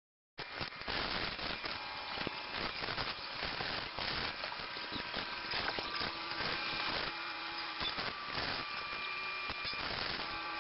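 Metal wire shopping cart being pushed through a store, its basket and wheels rattling and clattering continuously. The sound starts abruptly about half a second in.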